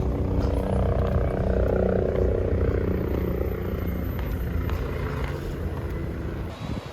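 Engine running steadily with a low rumble. A higher-pitched hum swells and then falls away in the middle, like the engine speeding up and easing off.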